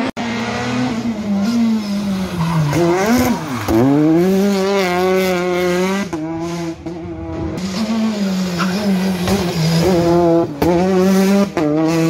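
Citroën DS3 R5 rally car's 1.6-litre turbocharged four-cylinder engine at full throttle through corners. The pitch drops sharply on braking and downshifts, then climbs again as it accelerates up through the gears, over several short passes.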